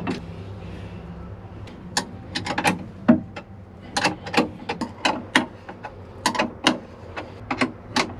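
Ratcheting wrench clicking in quick runs as nuts on a steel battery hold-down bracket are tightened, starting about two seconds in.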